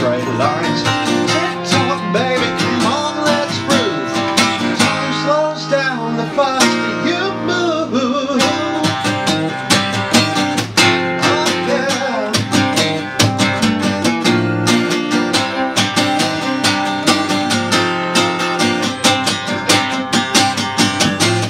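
Live acoustic music: a steel-string acoustic guitar strummed in a steady rhythm, with a violin playing gliding melody lines over it and a man's voice singing at times.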